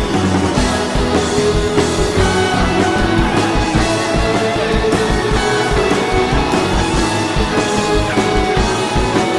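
Rock music with electric guitar and a steady driving beat.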